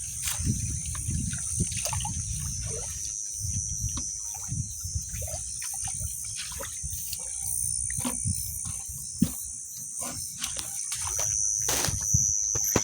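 Water sloshing and splashing in a shallow reservoir, with irregular low thuds and clicks, under a steady high-pitched insect chorus.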